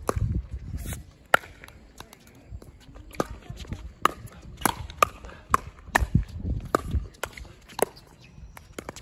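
Pickleball rally: paddles striking the plastic ball in a quick exchange of sharp pops, with bounces on the hard court and footsteps between them. A low rumble sits under it near the start and again about six seconds in.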